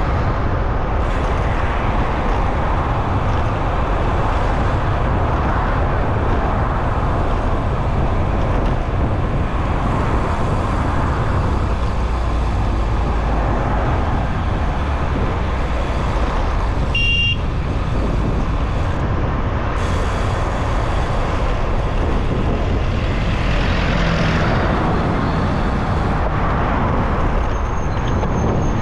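Steady city road traffic with a low rumble, heard from a moving bicycle. A short high tone sounds a little past halfway, and a thin high whine comes in near the end.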